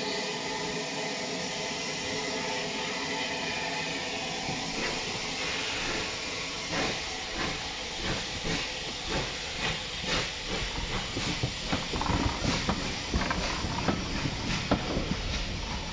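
Bulleid Battle of Britain class steam locomotive pulling away from a standstill: a steady hiss of steam, then from about five seconds in, exhaust beats starting slowly and quickening. Near the end the coaches roll past, louder and more uneven.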